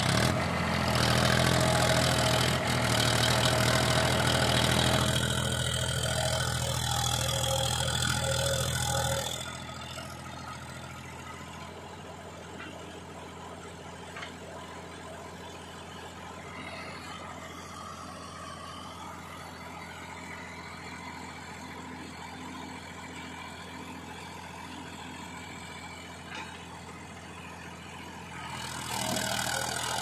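Diesel engine of a Powertrac Euro 50 tractor hauling a trolley loaded with mud, running loud at high revs for about the first nine seconds, then dropping suddenly to a steady idle, and picking up again near the end.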